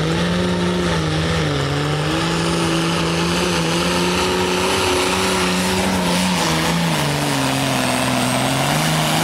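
Turbocharged International Harvester pulling tractor's diesel engine at full throttle, dragging a weight-transfer sled. The engine note holds steady, then sags lower in the second half as the sled load builds, and edges back up near the end.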